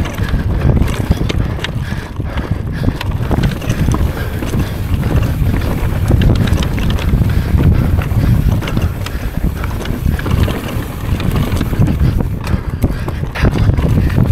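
Wind rushing over the microphone as a downhill mountain bike rides at speed, with a steady low rumble of tyres on the trail and frequent small knocks and rattles from the bike over rough ground.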